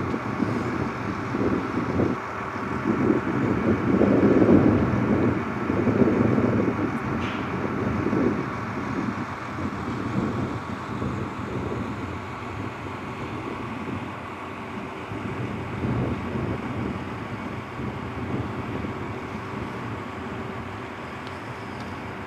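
Vehicle engines running on a dock, a steady hum with fixed tones, with heavier rumbling swells over the first eight seconds or so before settling to a quieter, even drone.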